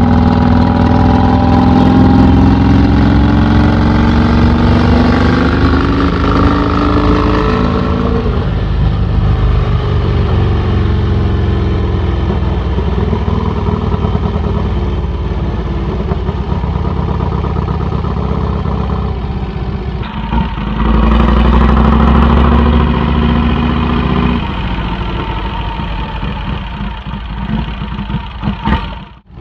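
Vincent 1000cc V-twin motorcycle engine with an open straight-through exhaust, accelerating and rising in pitch over the first several seconds, then running steadily at cruising speed. About twenty seconds in it gets louder for a few seconds, then settles and fades out near the end.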